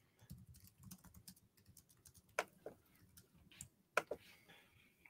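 Faint, irregular clicks of typing on a computer keyboard, a few louder taps among softer ones.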